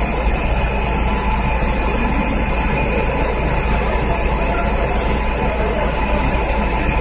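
Fire truck's engine running steadily, a constant low drone.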